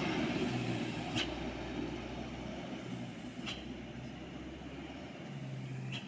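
Diesel light dump truck passing close by and pulling away, its engine and tyre noise slowly fading as it goes. Three sharp clicks come a couple of seconds apart.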